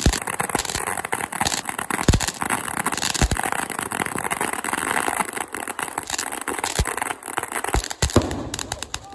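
Ground fountain firework spraying sparks with a dense, steady crackle, broken by several short, dull thumps.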